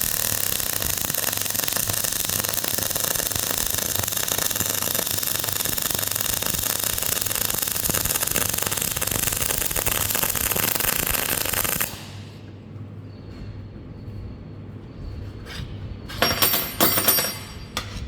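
Arc welding on a steel cultivator tine holder: the arc gives a steady crackling hiss for about twelve seconds, then stops abruptly. Near the end there are a few sharp metal clinks that ring.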